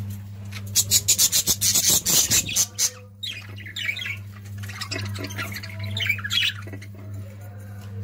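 Budgerigars calling in a colony: a fast run of loud, harsh squawks in the first few seconds, then quicker, lighter chirping and warbling chatter.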